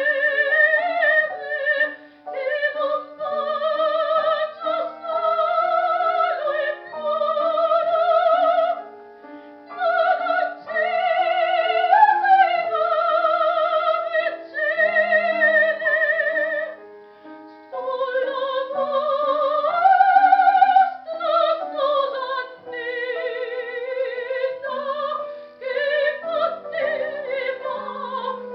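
Soprano singing opera with a strong vibrato, in phrases with brief breaths between them, accompanied by piano.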